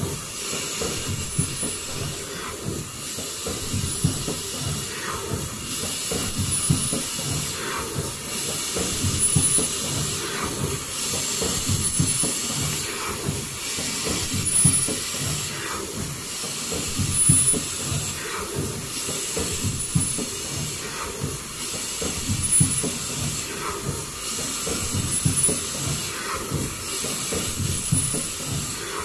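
Automatic folding N95 mask production line with valve welding, running: a steady mechanical din with a short, high whine and a light click repeating about every two and a half seconds, one machine cycle each time.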